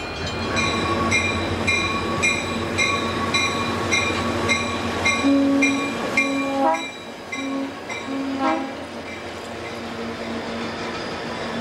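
Grand Trunk Western diesel locomotives passing close, with a bell ringing about twice a second that fades out about seven seconds in, and short horn notes around the middle.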